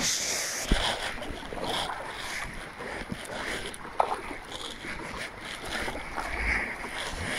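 Kayak paddle blades dipping into calm lake water, with a steady rhythm of splashes and drips and a few sharp knocks.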